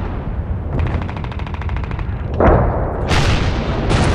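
Battle sounds: a rapid machine-gun burst lasting about a second, then heavy gun blasts with long echoing decays, over a constant low rumble.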